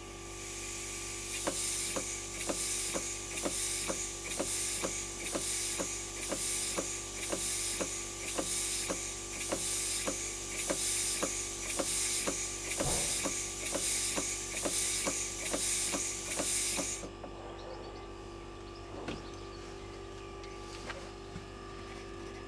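Brass overhead-crank model steam engine running on compressed air: an exhaust hiss puffs a little over once a second, with a light mechanical click on each stroke. About 17 seconds in the air hiss cuts off suddenly and the engine coasts down with a few scattered clicks, over a steady background hum.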